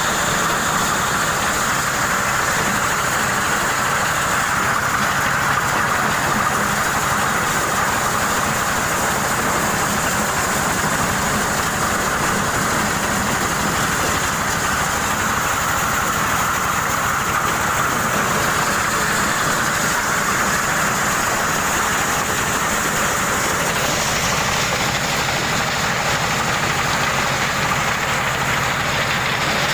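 Engine-driven corn sheller running steadily, threshing kernels from unhusked corn ears in one continuous mechanical din.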